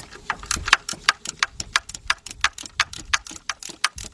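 3/8-inch drive ratchet clicking rapidly, about seven sharp clicks a second, as it spins a bolt loose.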